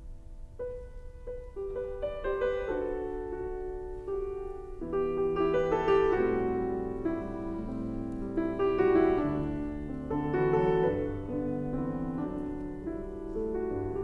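Background piano music, a slow piece of changing notes and chords.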